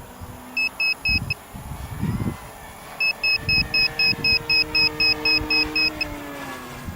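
Rapid electronic beeping, about four beeps a second: a short run of four, then after a pause a longer run of about a dozen. Underneath, wind buffets the microphone and a faint motor drone sinks slightly in pitch near the end.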